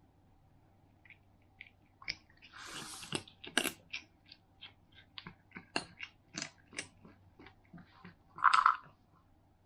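A cat chewing small pieces of dry kibble: after about two seconds, sharp crisp crunches come roughly twice a second, with a louder short sound near the end.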